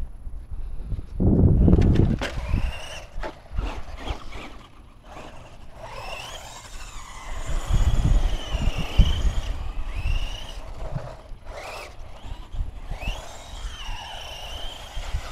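Radio-controlled trucks' motors whining, the pitch rising and falling over and over as they are throttled up and eased off. A burst of low rumble comes near the start.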